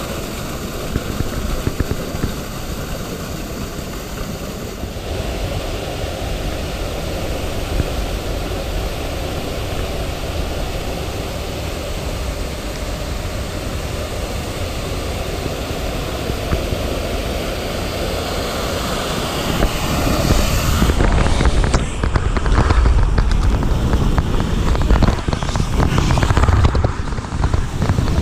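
Steady rush of flowing water around an inflatable ring tube in a water park channel, heard close up at water level. About 20 seconds in it grows louder and heavier, with choppy splashing, as the tube is carried down a water slide.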